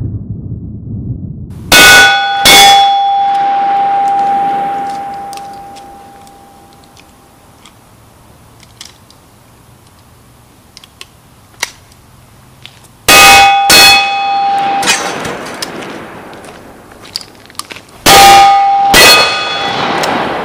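Sawed-off 12-gauge side-by-side shotgun fired three times in pairs, the two barrels about a second apart, at close range to a steel silhouette target. Each hit sets the steel plate ringing with a steady tone that fades over a few seconds.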